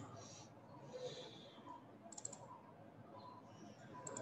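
Faint clicks of a computer mouse button, in short runs of quick clicks at the start, about two seconds in, and near the end.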